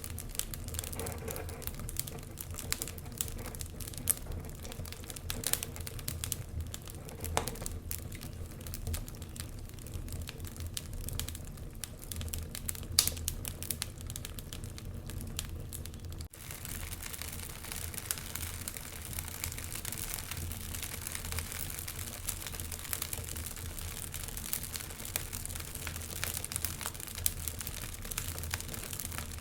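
Wood fire burning in a fireplace: irregular crackles and sharp pops over a steady low rumble. There is a brief break about halfway through, after which the fire sounds more like a steady hiss with the crackles still going.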